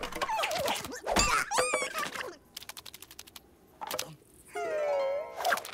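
Cartoon sound effects and wordless character voices: squeaky, warbling vocal sounds from a cartoon lizard, a heavy thunk about a second in, and a drawn-out falling whine near the end.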